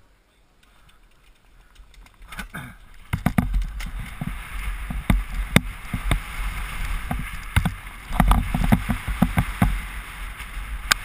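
Mountain bike ridden fast down a rough dirt downhill trail, heard from a helmet camera: a low rumble of wind and tyres with a quick, uneven run of knocks and rattles from the bike over bumps. Quiet at first, it builds up about three seconds in.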